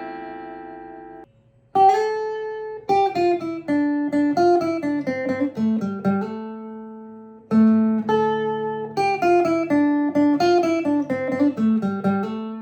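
Steel-string acoustic guitar fingerpicked. A ringing chord fades and breaks off, then short phrases of picked notes step downward, with a fresh chord struck about halfway through. The playing ends on a held, ringing chord.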